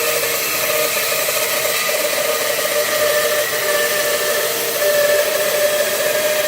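Bandsaw running with its blade cutting lengthwise through a small log, which is held on a sliding carriage jig: a steady tone over a loud, even hiss.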